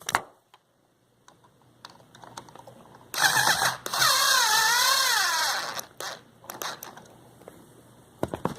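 Cordless electric screwdriver running on an outlet's side terminal screw: a short burst, then a run of about two seconds, its motor whine wavering up and down in pitch as the load changes. A few light clicks of handling around it.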